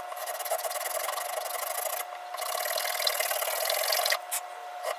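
Round file rasping back and forth across the top rail of a Zoraki HP-01 air pistol, cutting a shallow groove for a scope mount. The rasping is steady with a brief break about two seconds in, then turns to a few separate, lighter strokes near the end.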